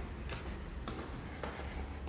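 Footsteps at a steady walking pace, about two steps a second, over a low steady rumble.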